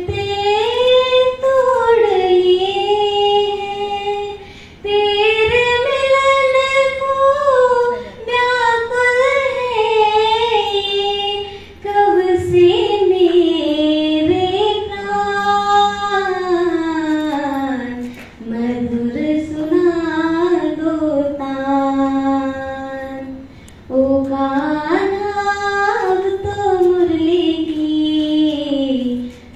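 A girl singing a Hindi bhajan (devotional song) unaccompanied into a microphone. Her long, sliding, held notes come in phrases of several seconds, with short breaks for breath between them.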